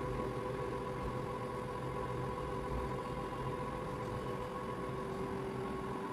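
Steady mechanical hum with a few constant tones over a low rumble, unchanging throughout.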